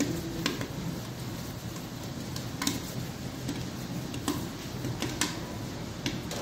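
Corn kernels popping in the heated steel kettle of an electric popcorn machine: scattered sharp pops, irregularly spaced, over a steady low hum. The kettle is full and popped corn is spilling over its rim.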